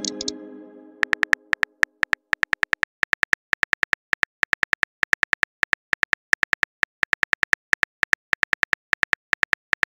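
Smartphone keyboard typing clicks, quick and slightly irregular at several taps a second, as a text message is typed out. A chime rings out at the start and fades away over the first second or two.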